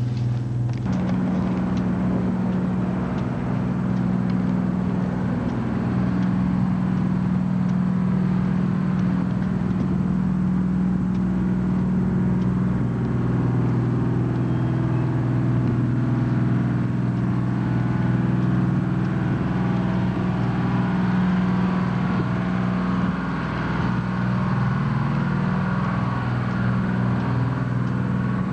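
A steady, low, engine-like mechanical hum under a constant wash of noise.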